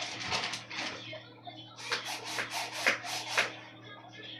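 A run of short rasping rub strokes: a cluster, a pause about a second in, then about three strokes a second.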